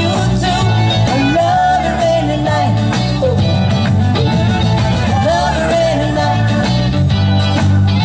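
Live country-rock band playing an instrumental passage: a lead guitar line that bends in pitch over steady bass and drums.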